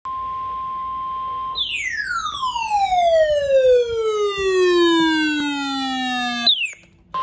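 Alert tones: a steady high beep for about a second and a half, then a siren-like tone sliding smoothly from high to low over about five seconds. It ends in a short upward chirp and a brief gap, and the steady beep starts again at the very end.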